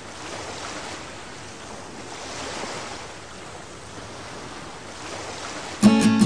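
Rushing water of a sailing yacht's bow wave and the sea along the hull while under way in rough water, with wind on the microphone; the noise swells and eases slowly. Strummed guitar music comes in loudly near the end.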